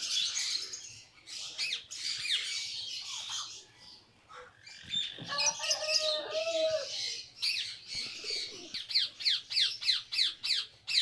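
Birds chirping, with many short, high, falling chirps and a quick run of them near the end. About halfway through there is a wavering squawk.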